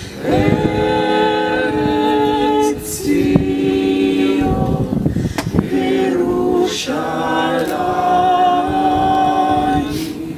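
Mixed vocal quartet of two women and two men singing a cappella: slow held chords in phrases a couple of seconds long, with short breaks between them.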